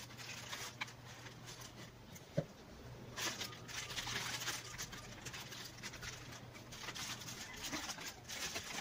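Plastic air-column packaging crinkling and rustling as hands pull it from a cardboard box and handle it, in uneven bursts, loudest in the middle and again near the end, with one sharp knock about two and a half seconds in.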